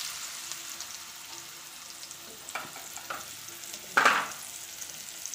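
Cut banana pieces sizzling in hot ghee in a frying pan, a steady hiss with a short, louder burst about four seconds in.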